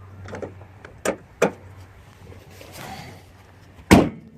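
Car hood being shut: two sharp clicks, then a single loud slam near the end.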